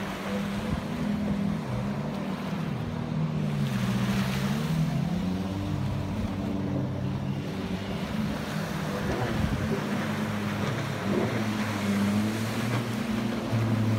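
Several jet skis running close offshore, their engines overlapping at different pitches that rise and fall as the riders throttle up and down through turns, over the wash of small breaking waves.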